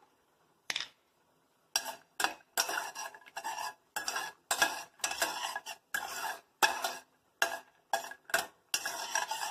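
A steel spatula stirring almonds frying in ghee in a stainless steel pan: a run of short scraping strokes, about two a second, over light sizzling.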